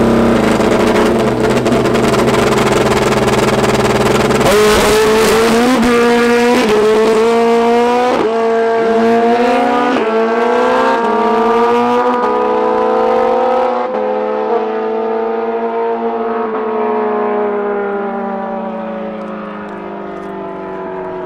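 Air-cooled inline four-cylinder drag motorcycle held at steady revs on the line, then launching hard. Its engine note climbs and drops back through several quick upshifts. Once in top gear the note holds, slowly falling in pitch and fading as the bike runs away down the track.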